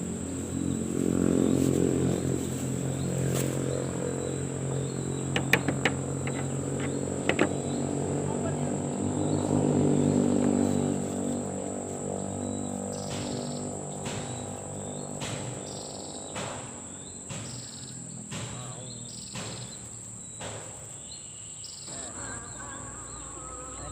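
Insects singing with a steady high-pitched whine, joined in the second half by a regular pulsing call about once a second. In the first half a low engine hum swells twice and fades out, with a few sharp clicks around the middle.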